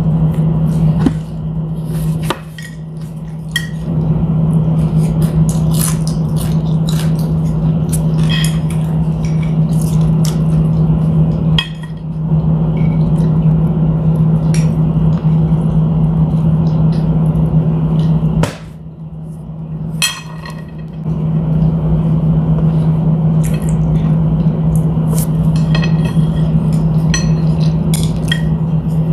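Chopsticks clicking and tapping against a ceramic plate and bowl while eating, with a few brief ringing clinks. A steady low hum runs underneath and drops away twice, once near the start and once about two-thirds of the way through.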